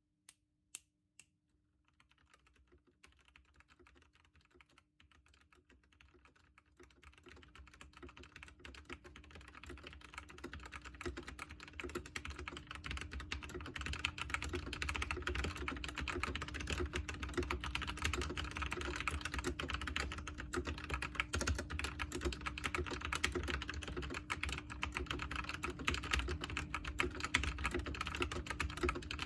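Aula F-2067 mechanical keyboard with lubed Outemu brown tactile switches, typed on: a few single key presses, then continuous fast typing that builds up louder and denser over the first ten seconds or so and then keeps a steady pace.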